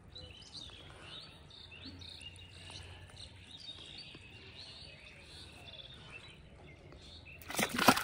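Birds chirping faintly over quiet pond-side ambience; near the end a sudden loud splash as a hooked fish is pulled up out of the pond water.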